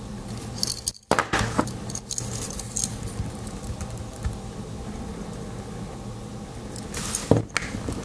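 Handling noise from two small Swiss Army knives with aluminium Alox scales: their metal key rings and scales clink in the fingers, with clusters of sharp clicks about a second in and again near the end.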